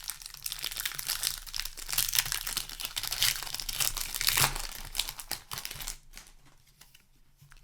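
Magic: The Gathering booster pack wrapper crinkling and tearing as it is opened by hand, a dense crackling that dies down about six seconds in.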